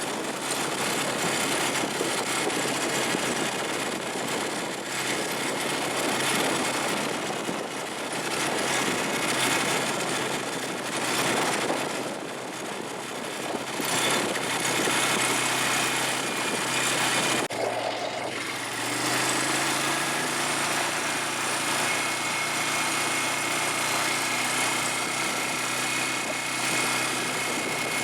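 Small all-terrain vehicle (ATV) engine running during a ride, with a steady rushing noise. There is an abrupt break about seventeen and a half seconds in, after which the engine's steady tone stands out more clearly.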